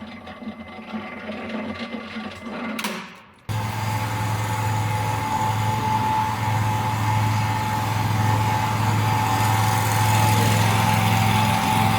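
Hydraulic power unit running a hydraulic core drill with a steady low hum and a constant higher tone. A quieter machine sound before it cuts off abruptly about three and a half seconds in, where the louder steady running begins.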